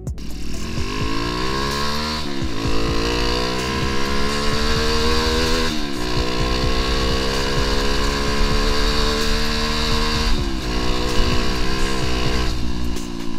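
Bored-up 2017 Kawasaki D-Tracker, its single-cylinder engine enlarged to 170cc with a 63 mm kit and a PWK28 carburettor, running through a GP7 Ballistic exhaust. The bike accelerates through the gears: the revs climb in each gear and drop at gear changes about two, six and ten seconds in.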